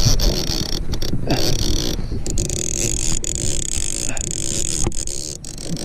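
Fishing reel being cranked and the rod handled close to the microphone while a hooked catfish is fought, with scattered scrapes and knocks, over a steady high-pitched drone of night insects.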